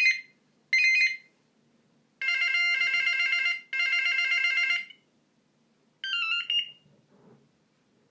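Monophonic electronic ringtones of a Philips Savvy mobile phone playing in separate snippets: a short phrase about a second in, a longer beeping melody from about two seconds in with a brief break, and another short phrase about six seconds in.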